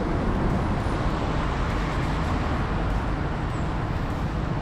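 Steady road traffic on a wet road: the continuous hiss of tyres and engines from passing cars and vans.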